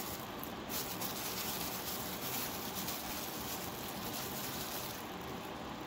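Soft, wet handling sounds of raw chicken strips being dipped and turned by hand in a beaten egg-and-milk mixture, over a steady background hiss.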